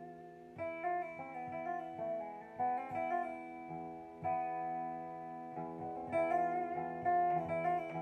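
Dobro resonator guitar played lap-style with metal fingerpicks and a slide bar: a free-form tune of plucked notes, some sliding in pitch, over open strings left ringing underneath.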